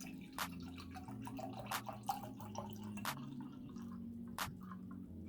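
Soft background music: low sustained chords that change every second or so, with a sharp click on the beat about every 1.3 seconds.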